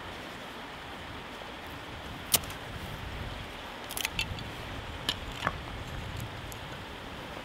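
Knife carving kindling sticks by hand, with a few sharp clicks and knocks of wood and blade, the loudest just over two seconds in, over the steady rush of a stream.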